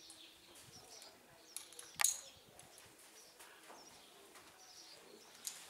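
Birds chirping faintly in the background, with a few sharp knocks or clicks, the loudest about two seconds in.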